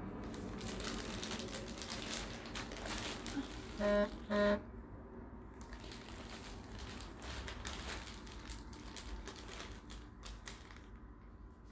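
Packaging being crinkled and crumpled by hand while a parcel of supplies is unwrapped. Around four seconds in, two short pitched tones about half a second apart stand out as the loudest sounds.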